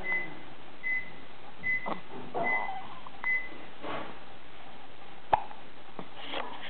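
Soft, short hiccups, one every couple of seconds, with a run of five short high electronic beeps about a second apart near the start and one sharp click about five seconds in.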